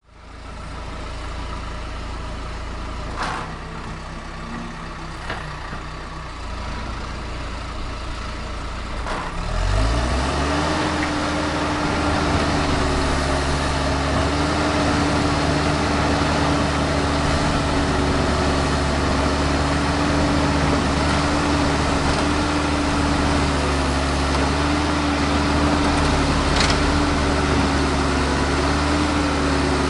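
Small tractor engine running at a low idle, with a few sharp clicks. About a third of the way in it revs up quickly and holds at a steady, louder, higher speed.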